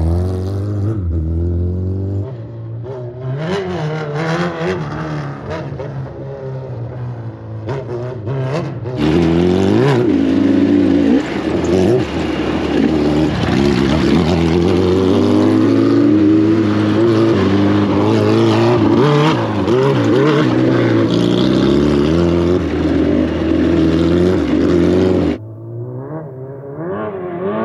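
Adventure motorcycle engines riding a dirt trail, the revs rising and falling with the throttle. From about 9 s it is heard close up from a following bike with wind rushing over the mic, then it cuts abruptly to a quieter, more distant engine near the end.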